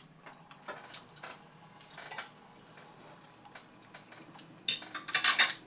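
Forks and a knife clinking and scraping on glass dinner plates. Light scattered taps run throughout, with a louder burst of clatter near the end.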